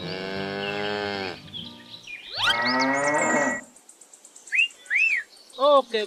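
Cattle mooing: two long moos, the first falling in pitch and the second rising, followed by a few short, higher calls near the end.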